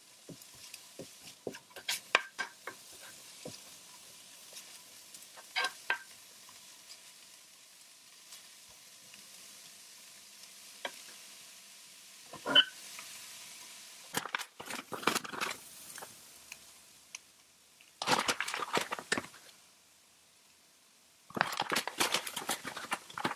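Chopped leeks sizzling softly in a non-stick frying pan, stirred now and then with a silicone spoon scraping across the pan. There is a single sharp clack about twelve seconds in, and longer spells of stirring and scraping near the end.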